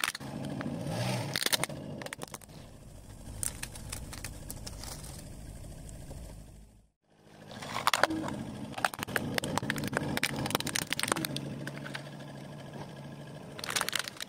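Hard plastic toy vehicles cracking and crunching under a slowly rolling car tyre, in clusters of sharp snaps, with the car's engine running low underneath. The sound drops out briefly about seven seconds in, then a second toy, a dump truck, cracks apart, loudest near the end.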